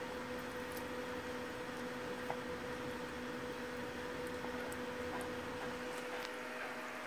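Steady electrical hum with a constant hiss, with a few faint, scattered ticks.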